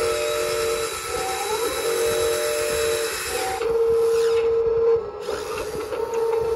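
Huina 1583 RC front loader's electric motors and gearing whining as its arms lift a 5 lb dumbbell in the bucket. The whine is steady, with a brief rising note about a second and a half in. The hissing lift noise stops about three and a half seconds in while a steady tone carries on.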